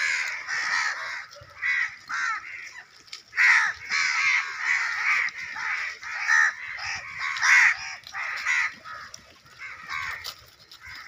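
A flock of crows cawing, many short harsh calls following one another several times a second and often overlapping.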